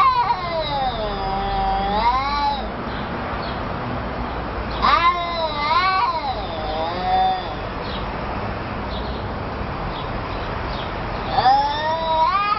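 Domestic cat yowling: three long, drawn-out calls that waver up and down in pitch, a few seconds apart.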